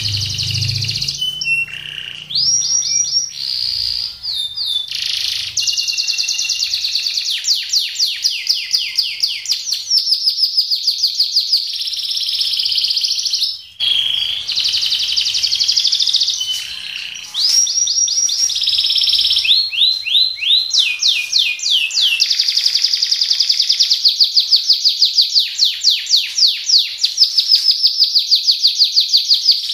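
Domestic canary singing without pause in long, rapid trills and fast runs of sharp repeated notes (the 'roll' and 'tembak' of canary song), high-pitched, with a brief break about halfway through.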